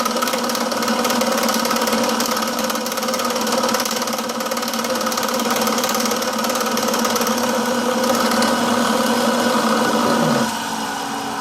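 Milling machine running steadily, a steady hum with several tones over a high hiss. About ten seconds in the sound drops off sharply and the machine carries on more quietly.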